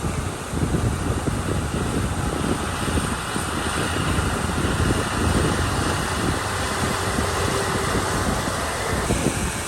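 Komatsu D31 crawler bulldozer's diesel engine running steadily, working harder from about half a second in.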